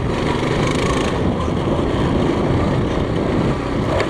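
Coleman CT200U-EX pit bike's small single-cylinder four-stroke engine running steadily at high revs while the bike is ridden under load, near its top speed.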